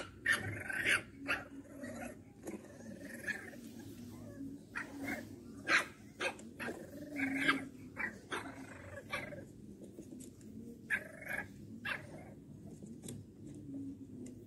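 French bulldog puppies play-fighting, with short growls and high yips in irregular bursts.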